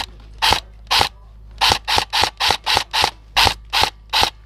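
Airsoft electric rifle firing single semi-automatic shots in quick succession, about a dozen sharp cracks at two to four a second, unevenly spaced.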